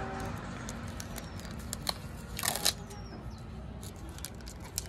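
Paper and plastic parcel packaging handled and torn open by hand: light crinkling and small clicks, with one short louder rip about halfway through.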